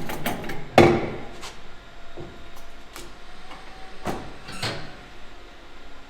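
A string of sharp knocks and clanks from work on a wheel and tire. The loudest comes about a second in and two more follow around four seconds in.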